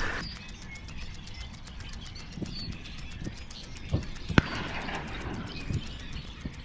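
Marsh ambience with small birds chirping faintly, broken by a few short low knocks and one sharp click about four and a half seconds in.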